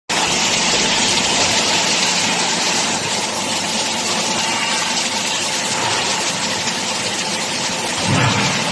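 Excavator's engine and hydraulic system running steadily with a loud, even hiss, with a brief low surge about eight seconds in.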